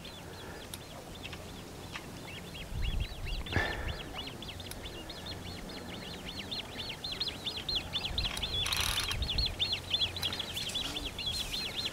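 A small bird singing a fast, unbroken run of high, swooping chirps. Two short bursts of noise come through about three and a half and nine seconds in.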